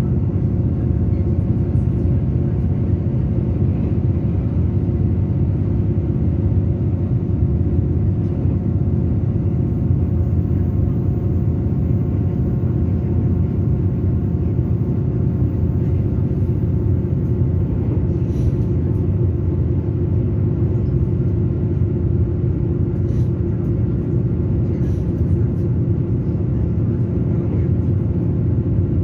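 Steady running rumble of an electric passenger train, heard from inside the carriage, with a faint steady hum over it and a few light clicks in the second half.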